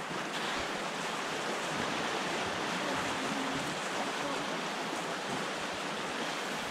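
Steady rush of a fast-flowing river in full flood.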